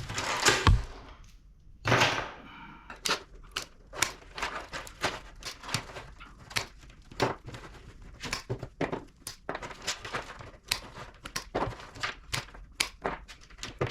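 Hand tools working scrap metal apart: two louder scraping, tearing noises in the first couple of seconds, then a long irregular run of sharp clicks and clinks of metal, about two a second.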